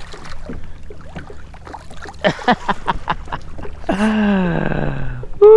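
Red drum splashing and thrashing at the surface beside a kayak as it is brought to the net. Near the end, a man lets out a long 'ooh' that falls in pitch.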